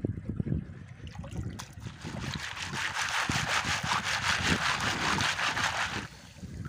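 Water sloshing and splashing through a plastic mesh basket of small clams as it is shaken back and forth in shallow river water to rinse off the mud. It is heard as a fast, even swishing that starts about two seconds in and stops abruptly about four seconds later, with a few low bumps from handling the basket before it.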